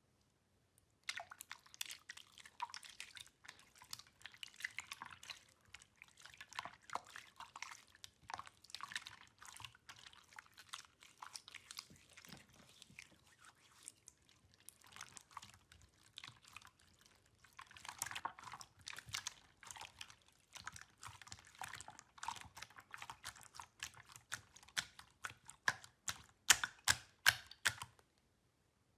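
Clear blue slime being pressed and kneaded by hand: a dense run of sticky, wet clicks and small pops as the hands squeeze and release it, quieter in the middle and loudest near the end.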